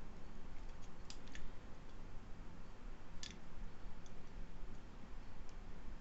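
A handful of light, sharp clicks at irregular intervals from small plastic parts being handled: the fan's jumper-wire connectors being pushed onto the Raspberry Pi 4's GPIO pins. A steady low hum runs underneath.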